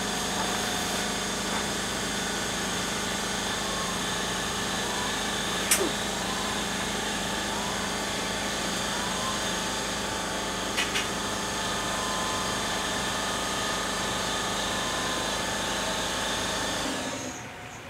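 Steady motor hum with several constant tones, cutting off suddenly about a second before the end. Two brief sharp ticks rise over it, one near the middle and one a few seconds later.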